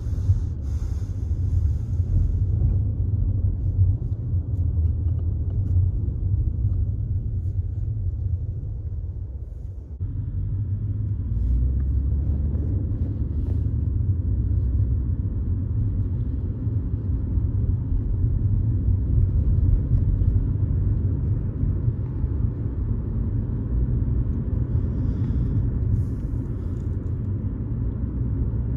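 Low, steady rumble of a moving car's road and engine noise, dipping briefly about ten seconds in, then carrying on.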